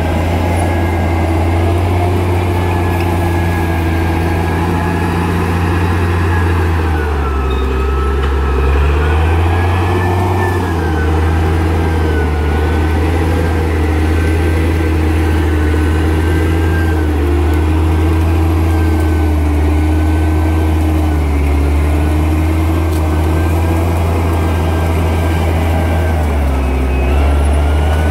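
Crawler bulldozer's diesel engine running steadily with a wavering whine over its low drone. The engine note drops and recovers about seven to eleven seconds in, and again near the end, as the load changes.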